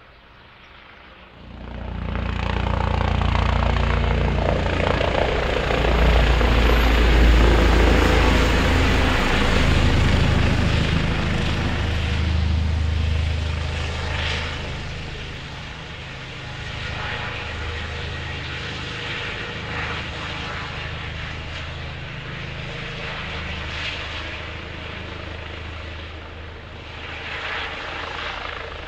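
Eurocopter EC135 P2 twin-turbine rescue helicopter flying low overhead, its rotor beating loudly. The sound rises suddenly after about a second and is loudest a few seconds later. It then eases to a steadier, lower running sound as the helicopter moves off toward its landing spot.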